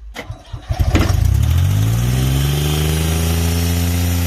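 Airman PDS90 air compressor's three-cylinder diesel engine cranked by its starter for about a second, catching easily, rising in speed and settling into a steady run.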